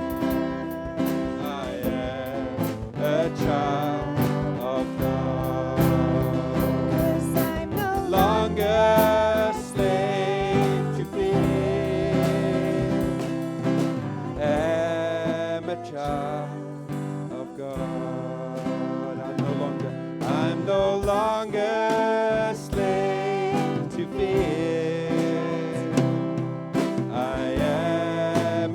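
Live church worship band playing, with guitar and sung voices over a steady instrumental backing.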